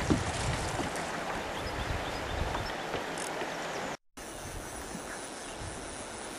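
Steady rushing of river water with wind noise on the microphone, broken by a brief drop-out about four seconds in.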